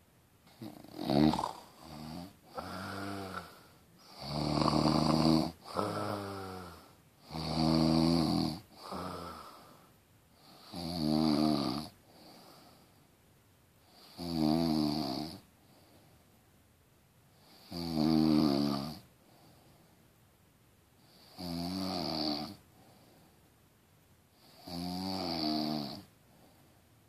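A person snoring, one snore about every three and a half seconds; the first few are shorter and uneven.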